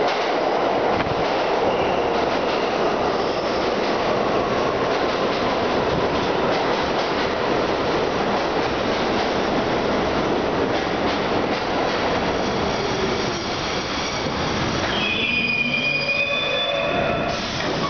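R32 subway train running into an underground station: a steady rumble and clatter of steel wheels on the rails as the cars pass. About fifteen seconds in, high squealing tones take over as the train slows to a stop.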